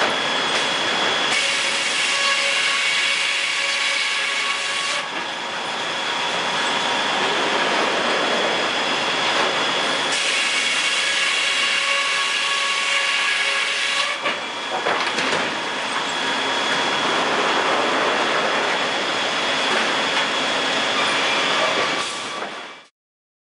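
Circle-saw overhead sawmill running: a loud, steady mechanical din with high, steady saw tones that come and go every few seconds. It cuts off suddenly near the end.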